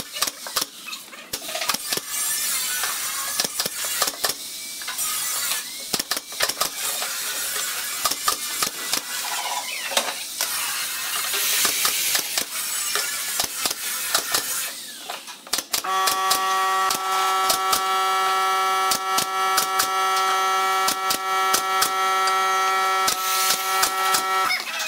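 Pneumatic nail gun firing brads into pine boards, one sharp shot after another in quick succession. In the last third a steady whine with several pitches comes in and cuts off just before the end.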